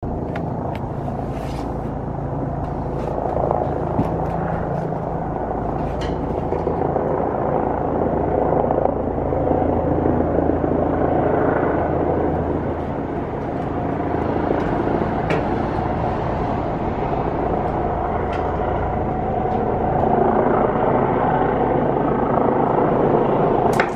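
Helicopter rotor and engine noise as it comes in to land: a continuous drone with a steady low hum, growing slightly louder.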